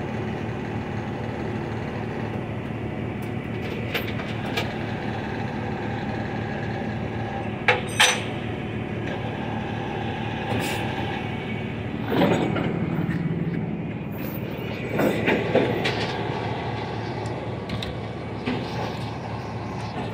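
A steady engine hum, like a vehicle idling, with a few sharp clicks about eight seconds in and louder bursts of knocking and handling noise around twelve and fifteen seconds.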